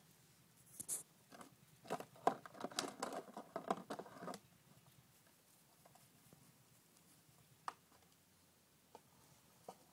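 A German shepherd puppy nosing a crumpled bag on concrete, the bag crinkling and rustling in a dense run for about three seconds, followed by a few faint isolated clicks.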